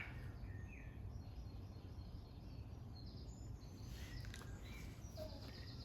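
Faint birdsong: scattered short, high chirps and trills over a low steady background hum.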